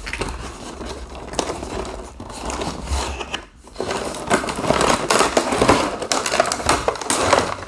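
Cardboard toy box being opened and its packaging handled: rustling, crinkling and scraping with many small clicks, getting louder about halfway through.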